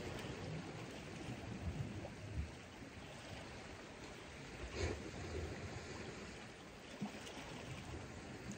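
Calm sea water lapping and sloshing at the shore, a steady wash of water noise, with a brief knock about five seconds in.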